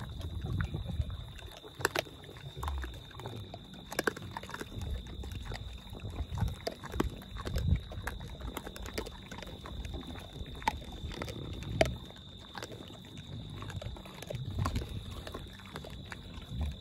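A herd of collared peccaries feeding on dry corn kernels: irregular sharp crunches and cracks of chewing, mixed with low animal sounds.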